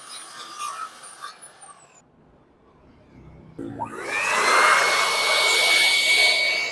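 Dekton CG190plus wood-cutting saw switched on about three and a half seconds in: the motor spins up with a quickly rising whine, then runs at a steady high pitch.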